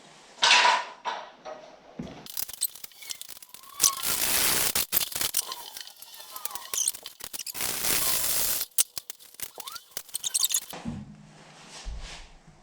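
Screws being cut through with a metal-cutting tool: harsh, noisy cutting in bouts with short breaks and many sharp ticks, starting about two seconds in and stopping near the end.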